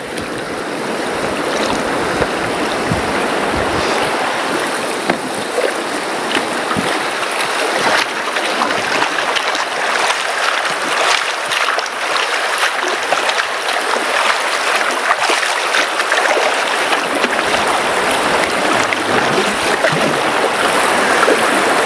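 Fast river water rushing through a rapid around an inflatable PVC boat drifting down it, a steady rush that slowly grows louder.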